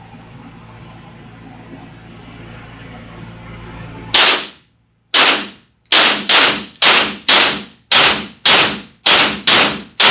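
A 9mm pistol fired in rapid succession: about eleven shots, roughly two a second, starting about four seconds in after a stretch of low steady background noise.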